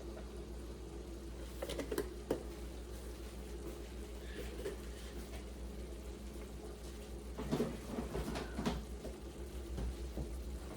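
Ground-beef taco meat with a little water simmering in a pan, a soft steady bubbling over a low hum, with a few light clicks and knocks about two seconds in and again near the end.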